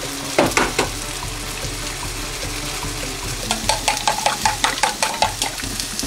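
An egg cracked against a stainless steel bowl: a few sharp ringing taps about half a second in. Then wooden chopsticks beat the eggs in the steel bowl, a fast run of ringing clicks about six a second, starting about three and a half seconds in and stopping near the end.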